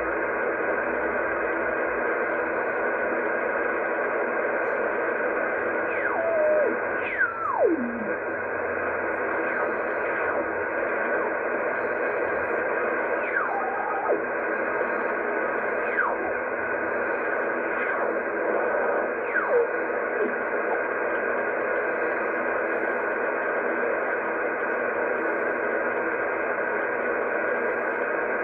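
Kenwood R-5000 shortwave receiver in lower sideband being tuned across the 80 m amateur band: a steady, narrow-band hiss of band noise, with whistling tones sliding down in pitch several times as the tuning passes over signals.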